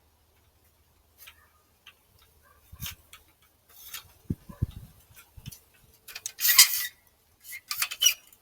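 Laser-level tripod stand and its strap being handled: scattered sharp clicks and light knocks, with a few low thumps near the middle and a louder rasping rustle about six seconds in.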